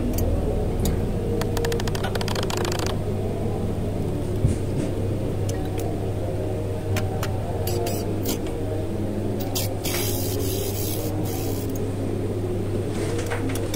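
Hand-tool work on a car's disc-brake caliper: scattered metallic clicks and taps, a quick rattling run of clicks between one and three seconds in, and a brief hiss about ten seconds in, over a steady low hum.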